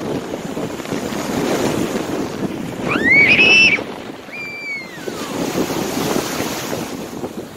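Waves washing onto the shore and wind buffeting the microphone, with a gull calling twice: a loud cry that rises and then holds about three seconds in, and a falling cry about a second later.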